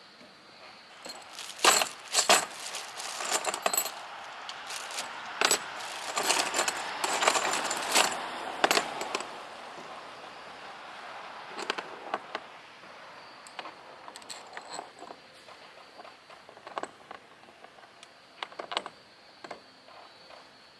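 Metal hardware and tools clinking and rattling: a dense run of sharp clicks and clatters for the first several seconds, then scattered single clinks.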